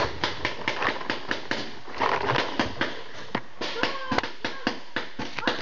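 Paintball markers firing: an irregular string of sharp compressed-air pops, several a second, as players shoot back and forth.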